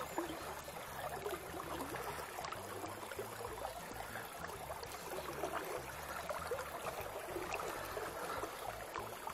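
Small river's current flowing and gurgling steadily over a shallow riffle.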